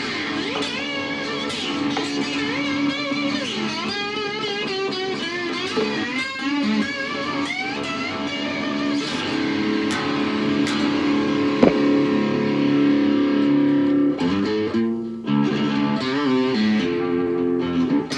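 Electric cigar box guitar played with a slide through an amplifier. Its sustained notes waver and glide in pitch.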